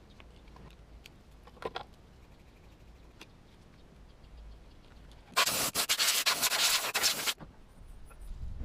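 Hands working on a scooter's carburetor: a few faint clicks, then, about five seconds in, roughly two seconds of loud rubbing and scraping of parts being handled.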